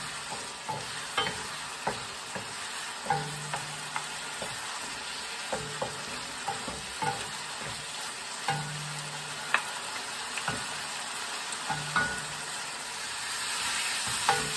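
Wooden spatula stirring and scraping in a nonstick wok, with irregular sharp clacks against the pan over a steady sizzle of tomatoes and lemongrass cooking down in their own juice.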